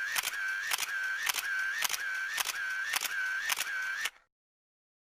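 Camera shutter clicking in rapid succession, about two shots a second, with a short whirring wind-on between shots. It stops about four seconds in.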